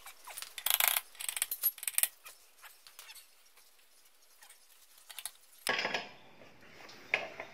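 Metal hardware clinking and rattling as a bolt with washers is fitted and an adjustable wrench is handled and set on the nut: a cluster of sharp clinks about a second in, light ticks after, then a brief rougher clatter near the end.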